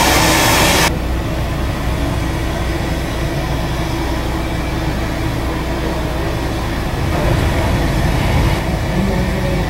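Aircraft cabin ambience: a loud airy hiss that cuts off suddenly about a second in, leaving a steady low rumble and hum.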